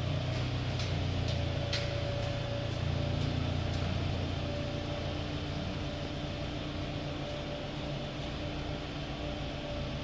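Steady low mechanical hum with a faint higher tone and a few light ticks.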